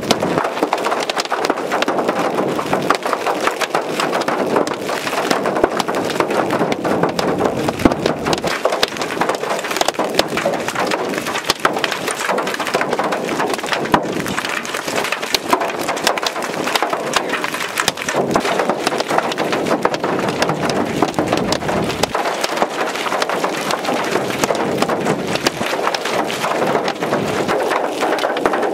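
Large hailstones from a supercell thunderstorm pelting the ground, a dense, continuous clatter of sharp impacts over a steady hiss.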